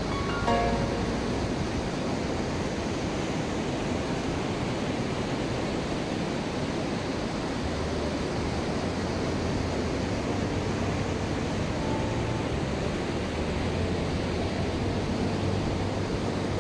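Steady wash of surf breaking on a sandy beach, a continuous even hiss of waves with no break.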